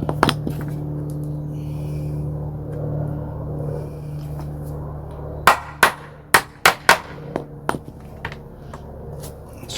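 Hammer striking nails into wooden planking: a quick run of about six hard blows a little past halfway, then a few lighter taps.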